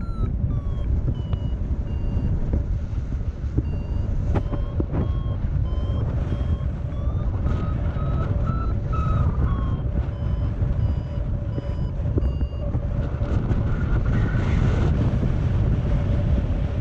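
Paragliding variometer beeping in flight, its beeps shifting up and down in pitch with the climb rate: falling in the first second, rising about halfway through, dropping again, then rising near the end. Steady wind rush on the microphone underneath.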